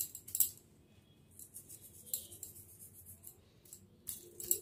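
Salt sprinkled by hand onto chopped vegetables on a pizza base: light, scattered high ticks of grains landing, with a sharper cluster of clicks about half a second in and another near the end.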